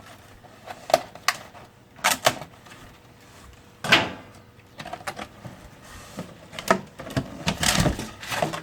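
Unpacking sounds as a barbecue griddle plate is lifted out of its box: a scatter of sharp knocks and clicks, a louder clunk about halfway through, and cardboard scraping and rustling near the end.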